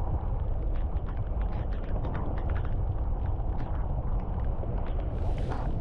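A car rolling slowly along a gravel road in heavy rain: a steady low rumble of the vehicle, with raindrops ticking irregularly on the glass and body. A brief hiss comes near the end.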